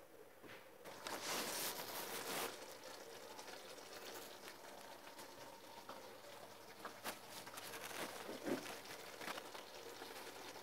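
Faint kitchen handling noises from a spoon and metal tart tins: a brief rustling scrape about a second in, then scattered light clicks and taps.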